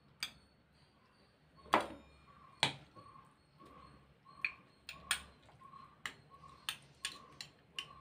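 Metal spoon clinking against a glass mixing bowl and small steel idli cups as batter is scooped and filled in: scattered sharp clinks, the loudest about two seconds in. A short note repeats about twice a second in the background from about a second and a half in.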